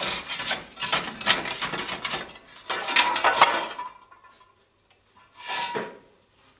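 Long fire shovel scraping and clanking inside a small steam locomotive's firebox as unburnt coke and clinker are raked out. A dense run of metallic clinks and scrapes lasts about four seconds, with a ringing metal note, then comes a pause and one shorter burst near the end.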